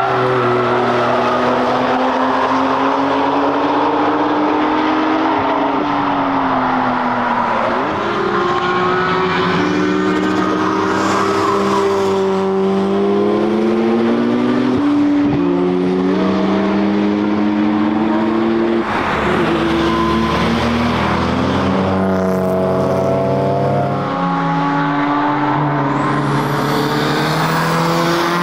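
Cars driven hard past the trackside one after another, their engines climbing in pitch under acceleration and dropping sharply at each upshift.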